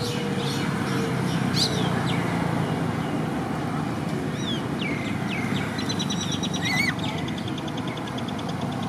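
Birds chirping over steady outdoor background noise: a few short, high, downward chirps, then from about six seconds in a rapid, high, repeated trill.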